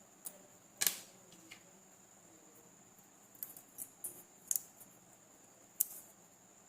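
Small sharp clicks and taps, about eight spread unevenly, the loudest about a second in, as tools and small parts are handled on a workbench. A faint steady high-pitched whine sits underneath.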